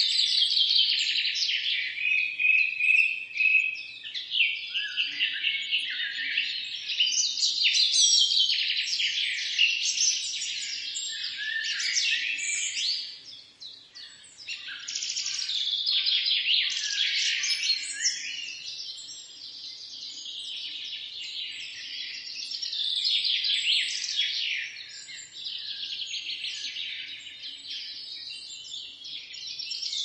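Many songbirds singing and chirping at once in a dense morning chorus of overlapping quick, high chirps and trills, with a brief lull about halfway through.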